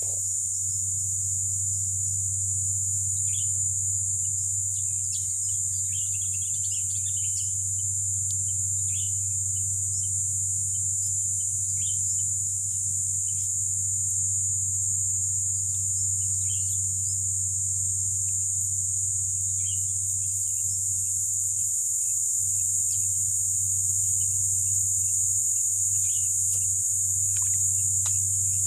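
Steady high-pitched drone of insects in a mangrove swamp, with scattered short bird chirps over it and a low steady hum underneath.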